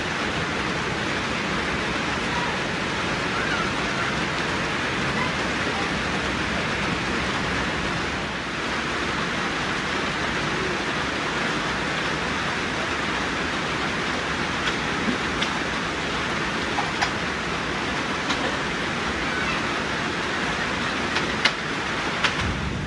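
Steady rain falling, an even hiss with no breaks, with a few short ticks in the last several seconds.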